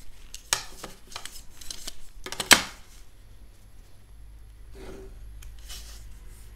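A metal ruler being handled and set down on paper over a wooden desk: a few light clicks and rustles, then a sharp knock about two and a half seconds in. Then a ballpoint pen drawing short lines along the ruler.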